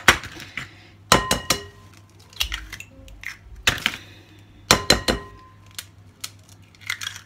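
Eggs cracked one by one against the rim of a glass mixing bowl: sharp taps that set the bowl ringing briefly, in two main clusters about a second in and about five seconds in, with lighter clicks of shell and egg dropping in between.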